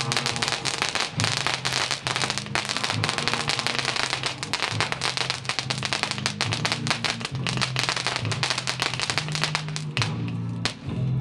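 Fireworks crackling: a dense, rapid run of small pops, with background music holding low notes underneath. The crackling thins out near the end.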